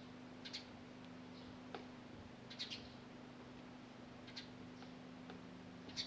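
A small bird giving brief, high chirps at irregular intervals, about six in all, with one sharper click among them, over a steady low hum.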